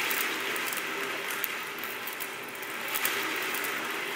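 Steady whirring rush from a hand-spun lazy Susan turning a wire-mesh cylinder around a beaker of burning hexanes, the flame swirling into a fire tornado, with faint clicks throughout.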